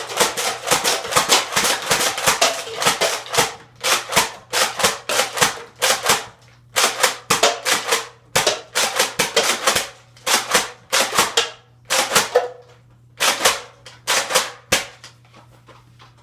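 Nerf Alpha Trooper pump-action spring blaster slam-firing darts from a 25-round drum: rapid clacks of the pump and shots, several a second in quick bursts with short gaps, stopping shortly before the end. The darts chamber so fast that the blaster struggles to keep up, which the owner says leaves it short of air.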